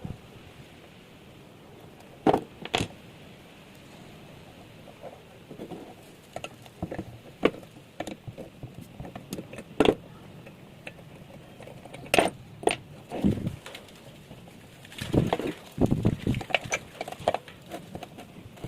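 Irregular clicks, clinks and knocks of hand tools and small metal parts being handled during repair work on a water pump, busiest near the end.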